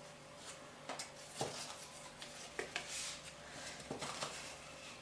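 Faint taps and rustles of cardstock being handled and fitted together by hand, a few light clicks spread across a few seconds.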